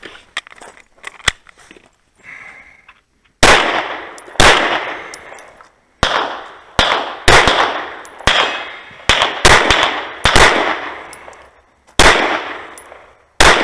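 About a dozen close-range pistol shots from a red-dot-sighted handgun, fired in quick pairs and singles. They begin about three and a half seconds in, and each shot fades away with a short echo.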